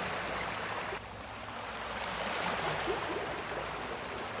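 Recorded sea waves: a steady rushing wash of water that drops back suddenly about a second in and swells again over the next two seconds.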